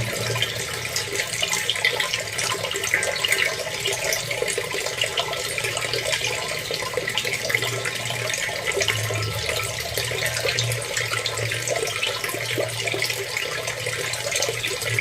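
Running water, a steady splashing and trickling flow.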